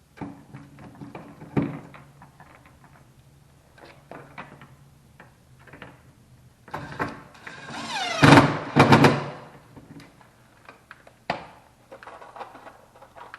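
Knocks and clatter of objects being handled, with a louder scraping, squealing stretch about eight seconds in.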